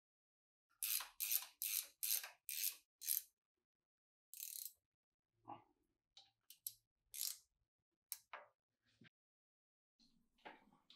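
A ratchet wrench working a 19 mm turret clamp bolt on a Bridgeport milling machine: six quick clicking strokes, about two a second, then scattered clicks and small metal knocks.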